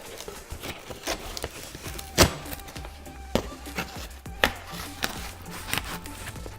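Background music with a steady low bass line, with a few sharp taps and knocks of a cardboard shipping box being handled, the loudest about two seconds in.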